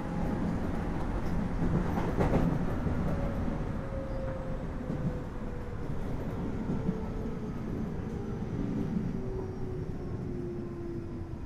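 JR East 205 series electric train heard from inside a motor car, with wheel and rail rumble and a motor and gear whine that falls slowly and steadily in pitch as the train slows. A single sharp knock comes about two seconds in.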